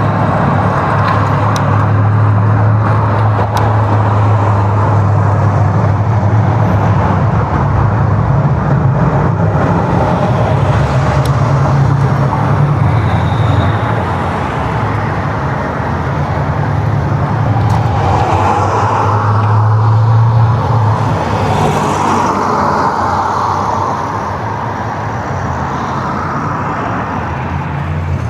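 Steady road vehicle noise: a low engine hum with road and traffic noise. The hum fades about halfway through and swells again shortly after.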